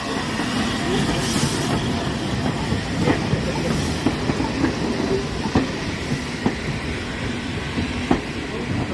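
Train rolling along the track, its wheels clicking over rail joints about twice a second from a few seconds in, over a steady rumble.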